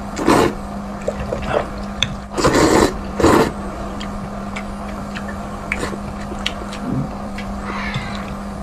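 Spicy noodles being slurped hard off chopsticks: three long slurps in the first few seconds, then wet chewing with small mouth clicks. A steady low hum runs underneath.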